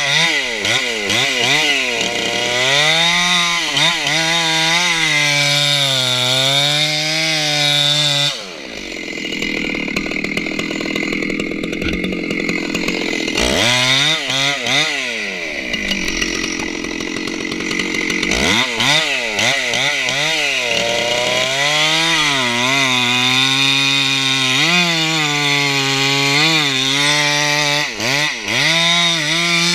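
Stihl 064 chainsaw, a ported hotsaw, cutting into the base of a big redwood. The engine pitch keeps dipping and climbing as the chain loads up in the wood and recovers.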